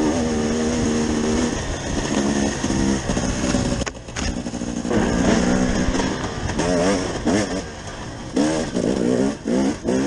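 KTM 250 EXC two-stroke enduro engine under way, held at steady revs at first, then revving up and down repeatedly as the throttle is worked through rough ground, with a brief drop off the throttle in between.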